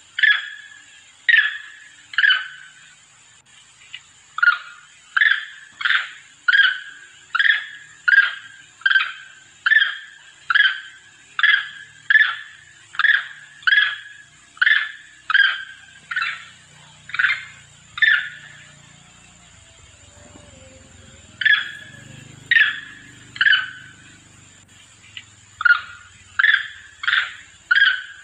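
Monkey calls used as a lure: a monkey calling its companions with short, sharp, high calls repeated about one and a half times a second. The calls come in long runs broken by a pause just after the middle and another shortly after.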